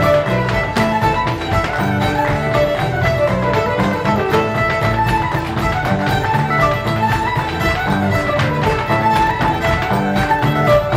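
Fiddle and mandolin playing a fast traditional fiddle tune together, with quick sharp percussive taps throughout from a step dancer's feet.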